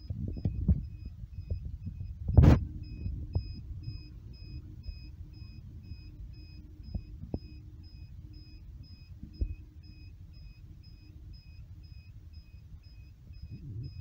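Close handling noise of hands working a cable and its connector at a telecom equipment rack: low rubbing and fumbling, one loud sharp click about two and a half seconds in, and a few lighter clicks and taps. Under it runs a steady low hum and a faint high pulsing tone.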